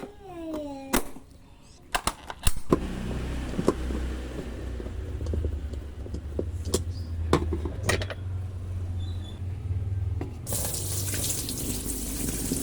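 Electric jet cleaner switched on: its pump motor starts with a few clicks and runs with a steady low hum, and about ten seconds in the water jet starts spraying with a loud hiss. A short falling squeak sounds at the very start.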